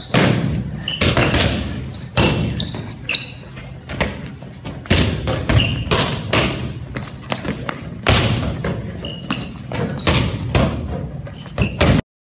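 Badminton rackets batting air-filled balloons: irregular thumps, one or two a second, in a large hall. The sound cuts off abruptly near the end.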